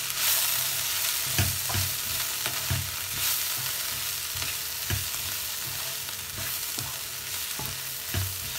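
Wooden spatula stirring and scraping chopped cluster beans around a nonstick kadai, with irregular knocks against the pan over a steady frying sizzle.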